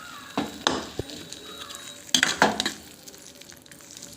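Metal spoon scraping and knocking against a cooking pan as the cooked pumpkin is taken off the heat: a few sharp clinks early on and a louder cluster about two seconds in.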